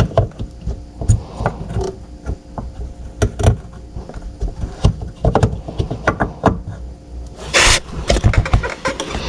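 Irregular clicks, taps and knocks of hands handling small plastic fog light parts and fittings, with a short burst of rustling hiss near the end.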